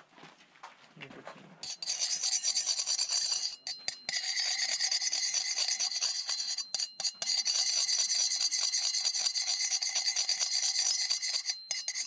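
A thin wooden stick scraping rapidly round a metal pan, rasping steadily, as white heroin is stirred into water to dissolve it. The scraping starts about two seconds in and stops briefly a few times.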